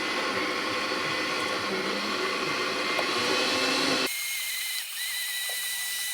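Countertop blender motor running at speed, pureeing roasted tomatillos and chiles into salsa. About four seconds in the sound changes abruptly to a thinner, higher steady whine.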